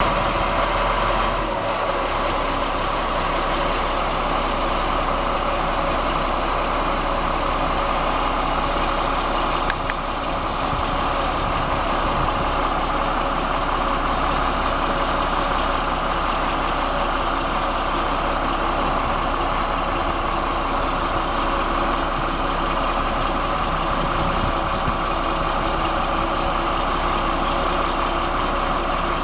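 Caterpillar D7G bulldozer's six-cylinder diesel engine running steadily at idle, heard beside the machine.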